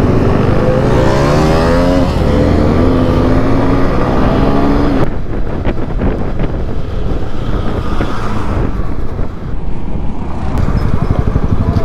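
Motorcycle engine under way, heard from the rider's own bike: its pitch climbs as it accelerates over the first few seconds. About five seconds in the sound changes abruptly to a rougher mix of engine pulses and wind rush on the microphone.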